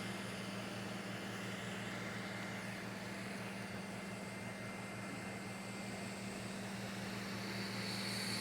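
Creality CR-M4 3D printer running: a steady hum and hiss from its fans and motors, with a faint high whine coming in near the end.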